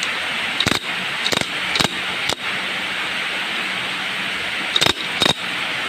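Six sharp clicks and knocks, spaced unevenly, over a steady hiss, from hand work on a motorcycle engine.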